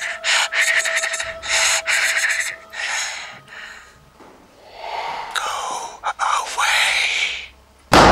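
Choppy, breathy gasping sounds over a held tone that stops about three seconds in, then slower swelling breathy whooshes that glide up and down in pitch. A sudden loud hit comes right at the end.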